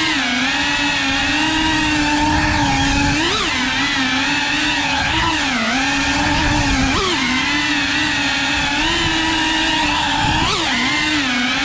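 A 3.5-inch cinewhoop FPV drone's motors and propellers whining at a steady pitch. The pitch drops and leaps up sharply a few times as the throttle is worked, about three seconds in, near the middle and again near the end.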